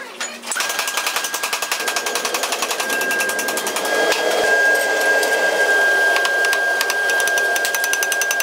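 Forge-shop machinery running with a fast, even clatter and a steady high whine, both starting about half a second in. The clatter grows a little louder about four seconds in.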